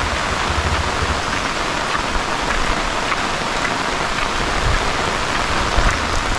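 Heavy monsoon rain falling steadily: a dense, even hiss.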